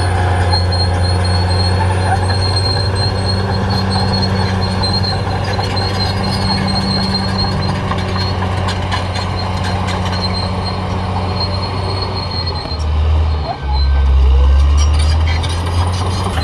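Caterpillar D6R XL bulldozer running steadily under load, its diesel engine note carrying a thin high whine that stops about twelve seconds in. Near the end the engine note dips, then comes back louder for a couple of seconds.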